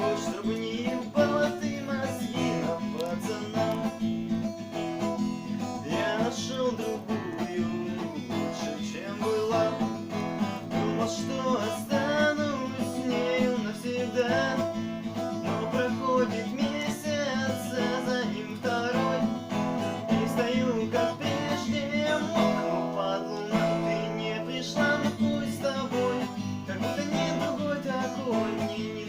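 Acoustic guitar strummed steadily as song accompaniment, with a wavering melody line over the chords.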